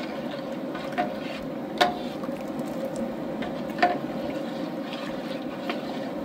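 A metal ladle stirring hot, thick masa liquid (tejuino) in a large aluminium stockpot over high heat, with a steady hiss underneath. The ladle clinks against the pot three times, about one, two and four seconds in.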